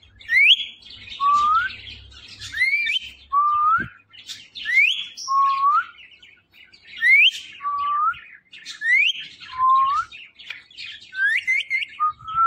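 Ringneck parakeet whistling a repeated two-note phrase, a quick rising high note followed by a lower, shorter rising note, about six times at roughly two-second intervals, with faint chirps in between.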